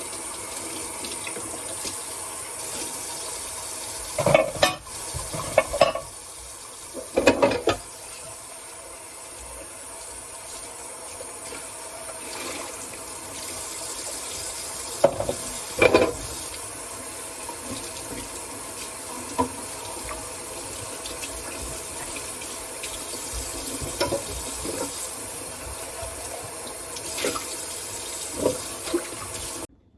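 A kitchen tap runs steadily into a sink while dishes are washed by hand. Dishes clink and clatter every few seconds, loudest about four, seven and sixteen seconds in. The water sound stops abruptly just before the end.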